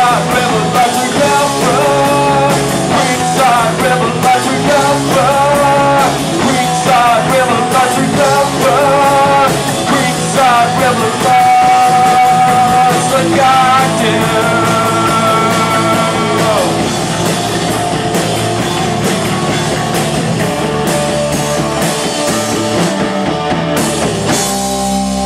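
Rock band playing loud and live: amplified electric guitars, bass and drum kit. Near the end the drums stop and the guitars are left ringing.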